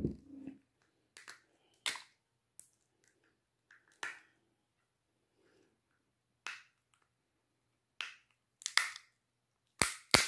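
King crab leg shells being cracked and snapped apart by hand: a series of about ten sharp, irregular cracks with short pauses between them.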